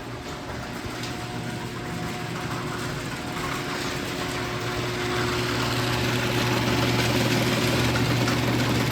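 Genie screw-drive garage door opener running as it raises the door: a steady motor hum with a low drone, growing gradually louder.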